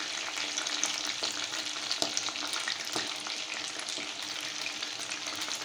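Chicken skin frying in a pan of hot oil: a steady sizzle with many small crackling pops.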